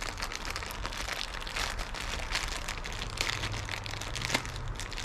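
Thin plastic packaging bag crinkling and crackling as it is handled, over a low steady hum.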